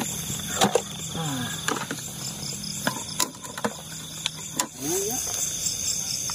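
Night field insects, crickets among them, chirping in a steady high pulsing trill, with scattered sharp clicks and rustles close by.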